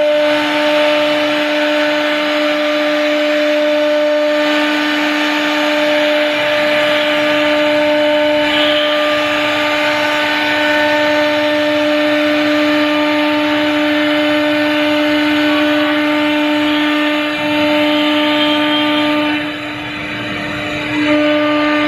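CNC router spindle with its bit cutting grooves into laminated particle board: a steady high whine over the noise of the cut, easing briefly near the end.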